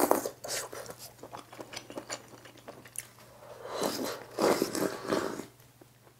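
Close-miked eating of budae-jjigae with ramen noodles. A loud slurp comes right at the start, then soft wet chewing, then about four seconds in a longer slurping of the stew's broth from a ladle.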